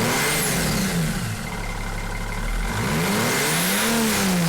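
Mercedes-Benz S320 CDI diesel engine free-revved twice at standstill, its pitch rising and falling each time, with a faint high whine that follows each rev. No squeak or whistle is heard: the exhaust leak from two loose exhaust-manifold nuts at the first cylinder has been cured by tightening them.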